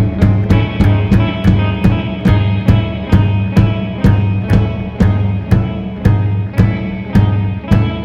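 Rock band music with a steady drum beat, about two hits a second, over a sustained bass line.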